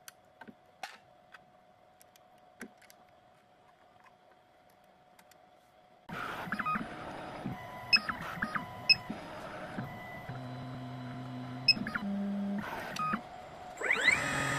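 Small clicks of a key being refitted in the clamp of a CNC key cutting machine. After about six seconds the machine starts running, with short electronic beeps, motors holding steady low pitches and a motor whine rising in pitch near the end.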